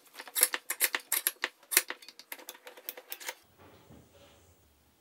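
Rapid, irregular metallic clicking of a pump oil can being worked, forcing oil through a sintered-bronze Oilite bushing in a lathe apron casting. The clicking stops about three and a half seconds in, leaving a faint low hum.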